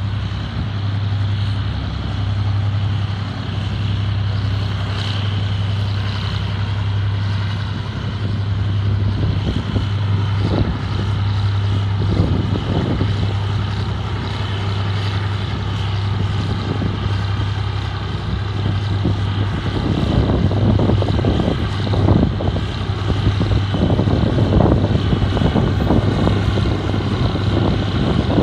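Diesel locomotive idling in the distance with a steady low drone. About twenty seconds in the drone fades and gusts of wind buffet the microphone.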